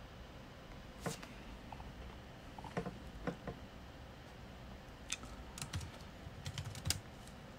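Computer keyboard and mouse clicks: a few scattered clicks, one about a second in, then a quicker run of keystrokes in the second half as text is typed.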